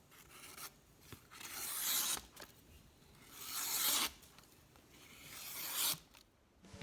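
Four drawn-out scraping strokes of handling noise, each swelling over about a second and stopping abruptly.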